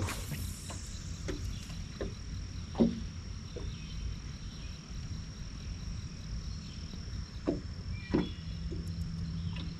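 Steady high-pitched insect buzz over a low rumble of wind and water, with a short swish at the very start and a few scattered light knocks and clicks.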